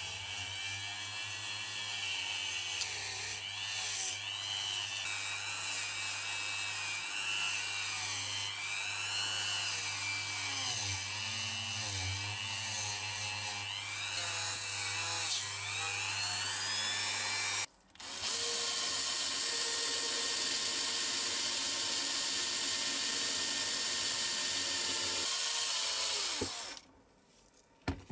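Dremel rotary tool spinning a brass wire brush wheel against a zinc-alloy diecast car body, scrubbing old paint off the metal; the motor's pitch wavers and dips as the brush is pressed on. It breaks off sharply about 18 s in, resumes as a steadier, louder whir, and stops about 27 s in.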